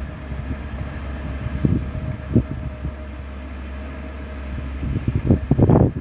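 Komatsu PC200 hydraulic excavator's diesel engine running steadily as the machine digs, with a faint steady whine and a few light knocks. Near the end, wind buffets the microphone with louder, uneven gusts.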